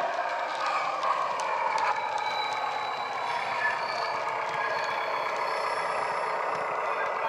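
A LokSound 5 DCC sound decoder in a Heljan OO gauge model of a GWR AEC diesel railcar, playing the railcar's diesel engine running sound through its small on-board speaker as the model runs along. The engine note falls a little about a second in, and a few faint clicks come from the model running on the track.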